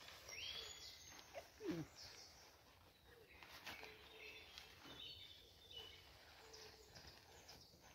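Faint birdsong: several rising whistled calls and short chirps, with a brief falling whine about two seconds in.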